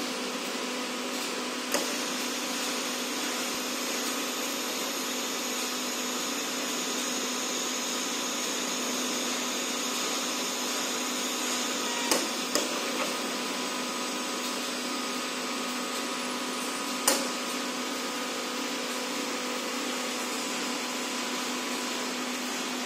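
Board production-line machinery running with a steady hum and whine, where a vacuum suction-cup gantry loader and roller conveyors handle boards. A few short sharp clacks cut through: one early, two close together near the middle, one later.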